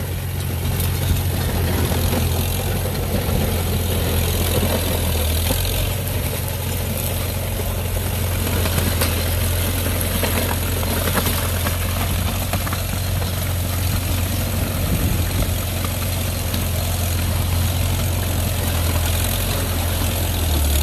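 1953 Farmall tractor engine running steadily as the tractor passes close by, pulling a rear grading blade along the driveway.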